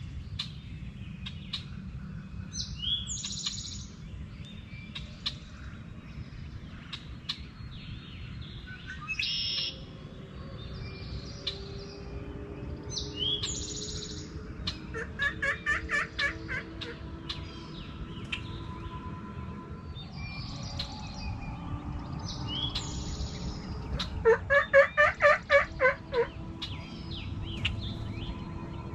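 Songbirds chirping and singing, with two loud runs of turkey yelps of about eight notes each, one around halfway and one near the end.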